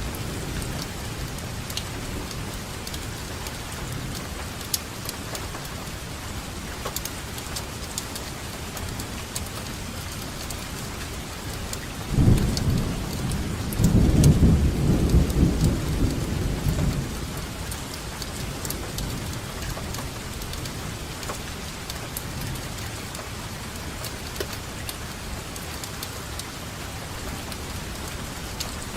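Steady rainfall with scattered drops. Thunder rumbles from about twelve seconds in for roughly five seconds, then fades.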